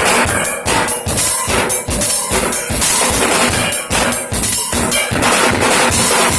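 Drum kit played in a busy freestyle, with rapid strikes following closely one after another.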